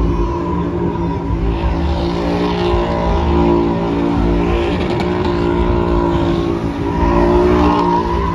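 Pickup truck's engine held at high, steady revs during a burnout, with the rear tires spinning and squealing against the track. The engine note swells a little about three and a half seconds in and again near the end.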